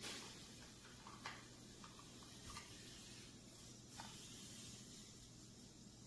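Near silence: a faint steady hiss and low hum of room tone, with three soft clicks spaced about a second and a half apart.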